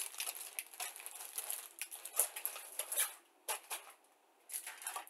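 Irregular rustling and light clicking of plastic model-kit sprues and their clear plastic bags being handled and lifted out of the box, with brief lulls in the second half.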